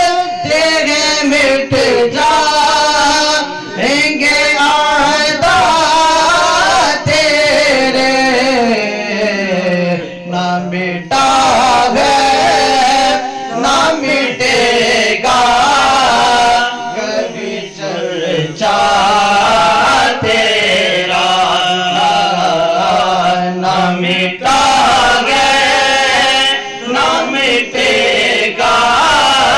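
A male voice singing a naat into a microphone, with no instruments: long, drawn-out phrases of bending and held notes, broken by short pauses for breath.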